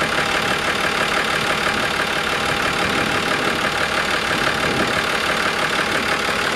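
Yamaha inboard marine diesel engine idling steadily with the engine hatch open.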